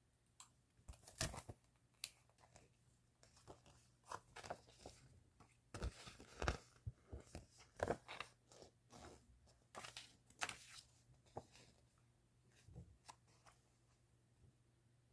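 Crinkly stationery packaging being handled and torn open: irregular rustling, crackling and tearing with sharp clicks, dying away near the end.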